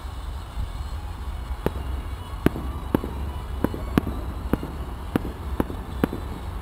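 Distant fireworks display: a string of about nine sharp pops from bursting shells, roughly one every half second, starting about a second and a half in, over a steady low rumble.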